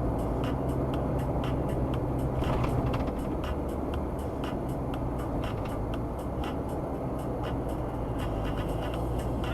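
Car interior road and engine noise with a steady low hum, and a turn-signal indicator ticking evenly about twice a second as the car keeps left at a fork.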